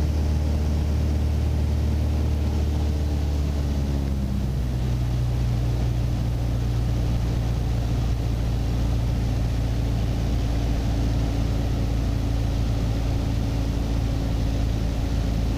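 A Mooney light aircraft's piston engine and propeller droning steadily, heard inside the cabin on final approach. The engine note drops a little about four seconds in, then holds steady.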